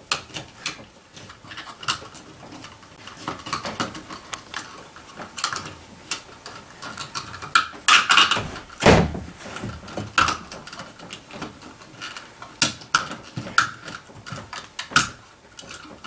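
Blue plastic cut-in electrical box clicking, scraping and squeaking against the drywall and the cable as Romex wires are forced into it. Irregular handling noise throughout, loudest about eight seconds in.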